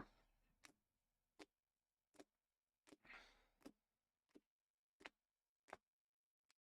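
Near silence with faint, evenly spaced clicks, about one every three-quarters of a second, and a brief soft rustle about three seconds in.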